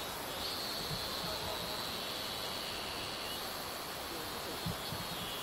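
A steady high insect drone over a constant broad hiss, with a few soft low thumps; the drone drops slightly in pitch near the end.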